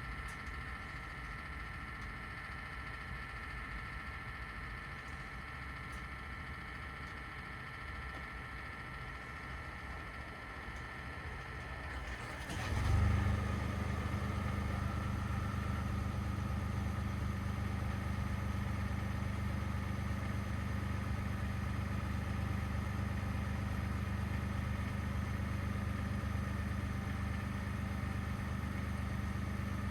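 A steady high-pitched hum while the engine is off; about twelve seconds in, the 2021 Ford F-150 PowerBoost's 3.5-litre twin-turbo V6 auto-starts with a brief burst and settles into a steady low idle.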